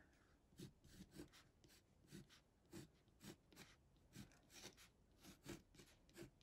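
Faint scratching of a pencil writing letters on coarse cotton watercolour paper, in short strokes about two a second.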